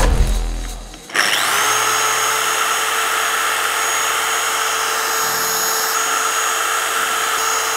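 A dual-action polisher with a black finishing foam pad spins up about a second in, then runs steadily while refining a car's tail light. It gives a steady hum with a high whistle over the hiss of the pad on the surface.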